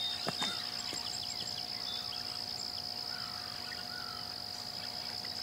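Insects trilling in one unbroken high, steady note, with a few short bird chirps and a couple of faint clicks in the first two seconds.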